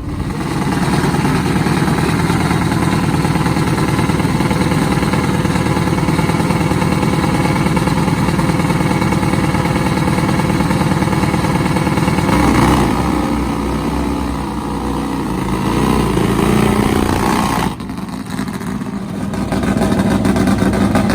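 Nitromethane-fuelled Top Fuel Harley drag bike engine running loud and steady. The sound changes about two-thirds of the way through, drops suddenly, then builds again near the end.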